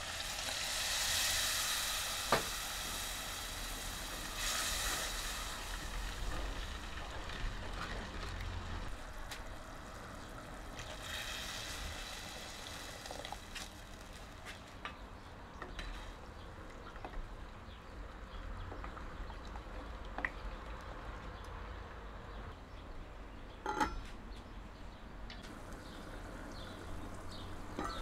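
Water poured into hot oil and fried chilli masala in an earthenware pot, sizzling loudly for the first few seconds; a second pour about eleven seconds in sizzles again. In between and afterwards the curry bubbles at a simmer, with a few sharp clinks of utensils against the pot.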